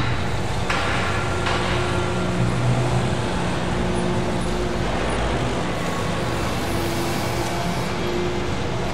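Construction-site ambience: a steady rumble of engines and machinery with faint held hums over it.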